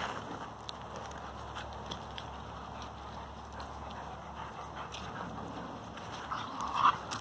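Dogs playing on dirt ground: scattered paw steps and scuffling, with a short, louder vocal sound from one of the dogs near the end.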